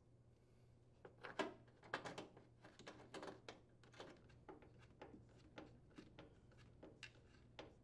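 Long metal cabinet mounting bolt being pushed through a hole in a wooden cabinet floor and then driven with a screwdriver: faint, irregular clicks and scrapes of metal on wood, coming about twice a second towards the end.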